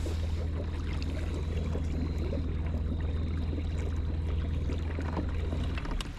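Boat motor running steadily with a low hum, cutting out just before the end.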